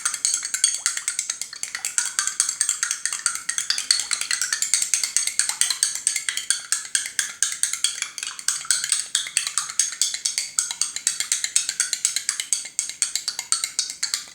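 A spoon rapidly stirring borax solution in a container, clinking against its sides in a quick, even run of clicks, several a second.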